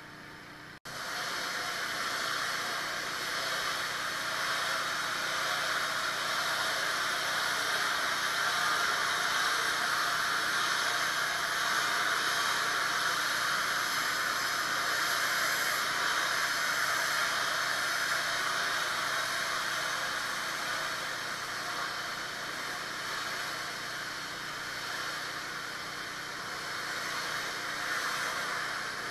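Pressure-washer wand spraying water onto a concrete driveway: a steady loud hiss that starts suddenly about a second in as the trigger is pulled, rinsing the surface, over the washer's engine running underneath.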